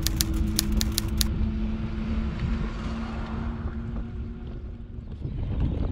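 Riding noise from a Swytch-converted e-bike with wind rumbling on the GoPro's microphone. Rapid even ticking, about five a second, stops a little over a second in, and a steady low hum fades out about five seconds in.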